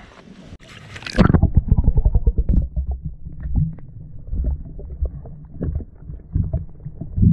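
A splash about a second in as the camera goes under the water. Then muffled underwater rumbling and irregular knocks, heard through the submerged camera.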